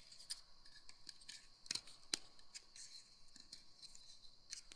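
Faint plastic handling clicks and taps as a 1:18 scale action figure is positioned in its toy speeder, with two sharper clicks about two seconds in.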